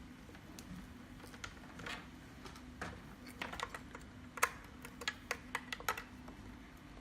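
Typing on a computer keyboard: irregular keystroke clicks, a few scattered at first and then a quicker run about halfway through, over a faint steady low hum.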